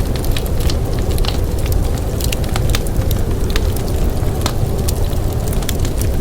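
Wood fire crackling, with frequent sharp, irregular pops and snaps over a steady deep rumble.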